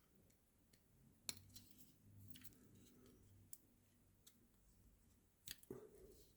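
Faint clicks and snaps of a Victorinox Rescue Tool's folding tools being handled and swung out, a sharp click about a second in and another pair near the end.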